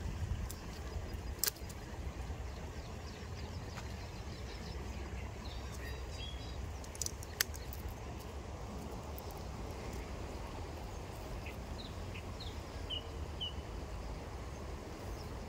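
Outdoor background noise, a steady low rumble, with a few faint bird chirps, several of them near the end. Two sharp clicks stand out, about a second and a half in and again past the middle.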